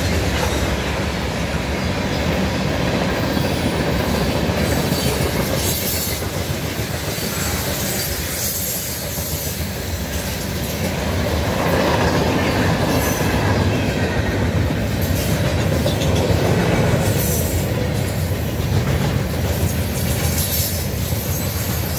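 Freight cars of a passing train (tank cars, then a flatcar) rolling along the rails: a continuous rumble of steel wheels on track, with sharp clicks every second or two as wheels cross rail joints.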